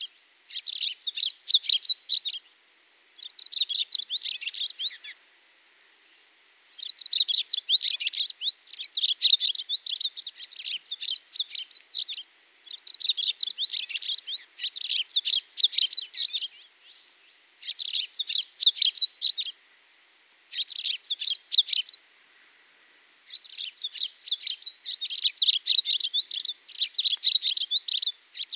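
Songbird chirping in quick runs of high chirps, each phrase one to three seconds long with short pauses between.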